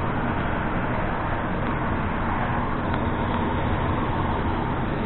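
Steady, loud roar of airport apron noise from aircraft and ground equipment running, even and unbroken.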